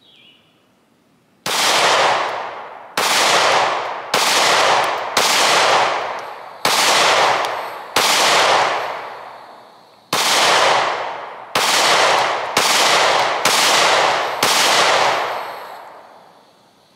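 Stoeger STR-9MC 9mm micro-compact pistol fired eleven times in slow, uneven succession, one to two seconds apart, emptying its 11-round magazine. Each shot is followed by an echo that fades over about a second.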